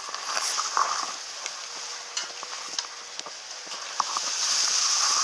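Footsteps and grass rustling as someone moves along a narrow dirt path through tall grass, with scattered short crunches. Under it runs a steady high-pitched hiss that grows louder near the end.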